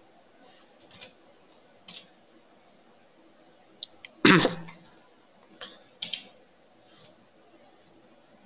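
A few scattered clicks of a computer mouse and keyboard, with one louder, short sound about four seconds in.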